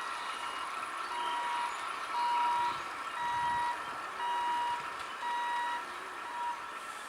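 Electronic warning beeper of a railway level crossing gate, sounding about once a second with each beep about half a second long, over a steady hiss.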